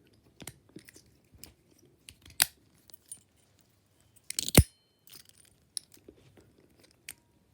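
Tri-Circle 265 brass padlock being handled and its steel shackle worked: scattered small metallic clicks, with one loud clack about four and a half seconds in. The shackle is very stiff.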